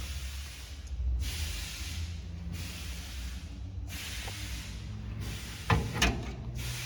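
Pneumatic valve-fixing and crimping machine of an aerosol filling line cycling: compressed air hisses in repeated bursts, about one every second and a half, over a steady machine hum, with two sharp clacks near the end.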